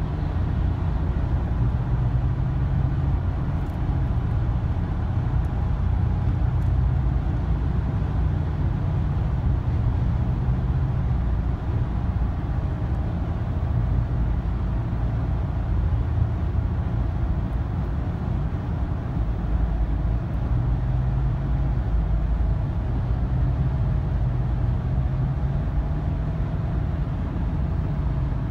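Steady low road rumble inside a moving car's cabin: tyre and engine noise while driving.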